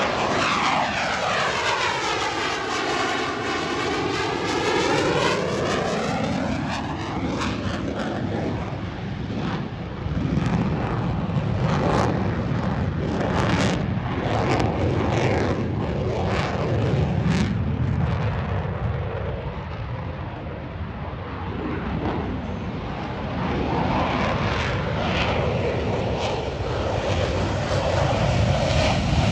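Blue Angels F/A-18 Super Hornet jets flying past, with a sweeping pitch as one jet passes in the first several seconds. Then a steady jet rumble with crackling, growing louder near the end.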